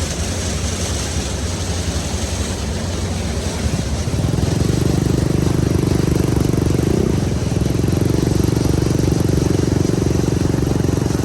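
Công nông farm truck's single-cylinder diesel engine running, then about four seconds in it gets louder and its note rises as it is throttled up, holding there.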